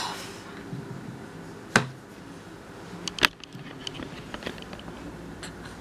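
Two sharp knocks about a second and a half apart, the second with a smaller tap just before it, over a faint steady hum.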